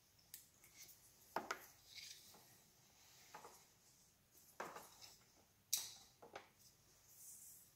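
Faint handling noises from a flat wiper blade's rubber refill being worked by hand: light rubbing with a few sharper clicks scattered through.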